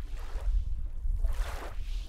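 Small lake waves lapping on a pebble shore, washing in twice, with wind rumbling on the microphone throughout.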